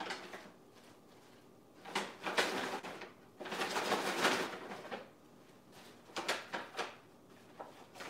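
Brown paper gift bag and tissue paper rustling and crinkling as the tissue is pulled out of the bag, in two long bursts about two and three and a half seconds in, then a few shorter crackles near the end.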